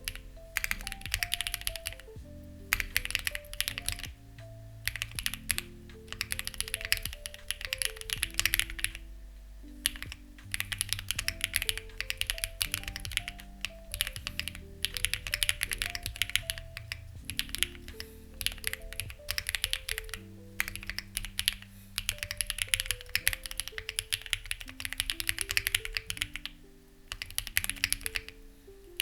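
Steady typing on a Lucky65 v2 mechanical keyboard with stock, unlubed HMX Ziwei switches and CMK-style keycaps: dense runs of key clacks broken by short pauses. Soft background music with held, slowly changing notes plays underneath.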